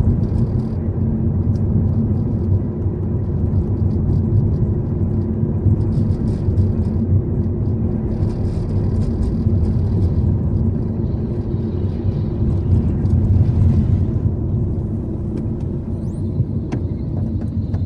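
Steady low rumble of a car driving, with engine and road noise.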